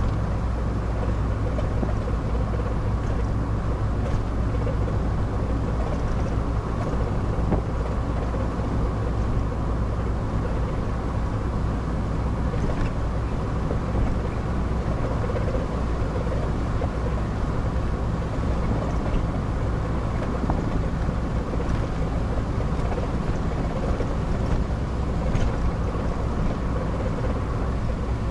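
Car cruising at a steady speed, with engine and road noise heard from inside the cabin as an even low rumble.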